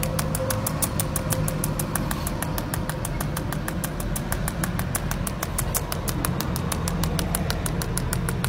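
A steady low machine hum with an even, rapid ticking, about seven ticks a second.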